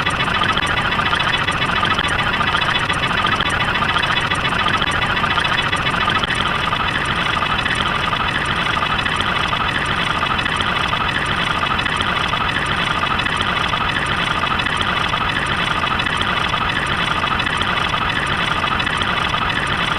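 An engine idling steadily, a fast, even pulsing that does not change.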